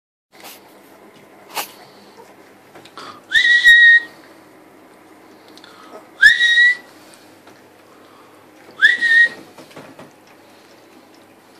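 Three short high whistles a few seconds apart, each sliding quickly up and then holding one steady note for about half a second. A single sharp click comes about a second and a half in.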